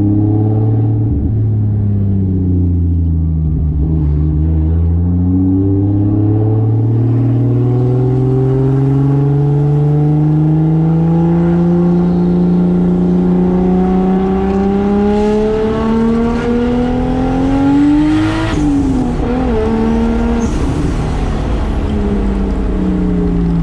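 Turbocharged 2JZ inline-six in a Toyota Soarer under way: the revs climb slowly and steadily for a long stretch, then drop sharply with a short noisy burst as the throttle lifts. The engine settles and runs steady, then the revs fall away near the end.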